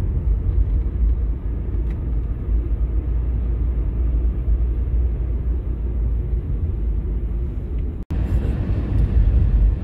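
Steady low rumble of a car driving at road speed, engine and tyre noise heard from inside the cabin, with a brief break in the sound about eight seconds in.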